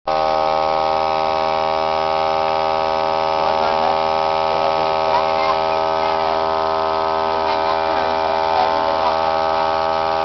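A steady electrical buzz with many even overtones, unchanging in pitch and loudness, typical of hum picked up in a camcorder's recording.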